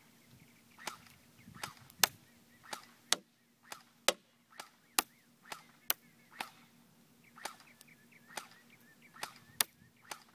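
Crosman Pulse R71 airsoft gun fired on semi-automatic: more than a dozen sharp cracks, irregularly spaced about every half second to a second, as BBs are shot at a cardboard cereal box target.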